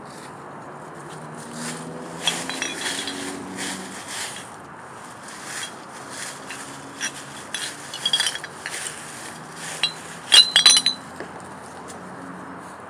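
Glass bottles clinking against each other as they are handled and set down on the ground. Light clinks come in scattered groups, and a cluster of sharp ringing clinks about ten seconds in is the loudest.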